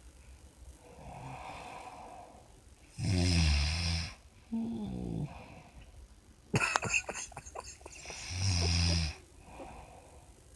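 Snoring: four snores with quieter breaths between, the longest about three and eight and a half seconds in, and one in the middle that breaks into a fluttering rattle.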